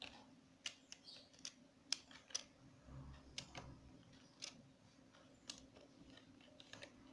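Computer keyboard keys being pressed one at a time: about a dozen faint, separate keystroke clicks at uneven intervals as code is typed.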